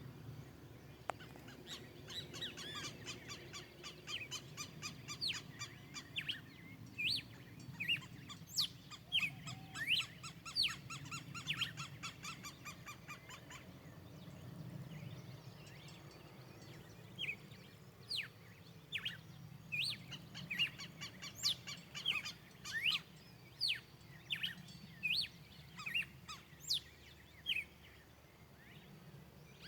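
Several wild birds of the Brazilian sertão calling and singing: many short, sharp chirps and quick sweeping whistles, with runs of rapid repeated notes, over a faint low background noise.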